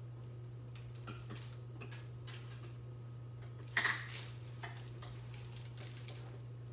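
Pancake cooking in a greased frying pan: faint, scattered crackles and ticks over a steady low hum, with one louder click about four seconds in.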